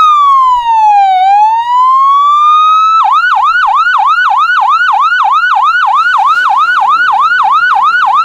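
Electronic police siren: a slow wail that falls and rises again, then switches about three seconds in to a fast yelp of about three sweeps a second.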